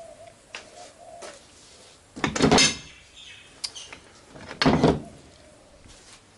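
Metal handling noises in a workshop as an engine block is worked on: two loud clunks with a scrape, about two seconds apart, with lighter clicks between them.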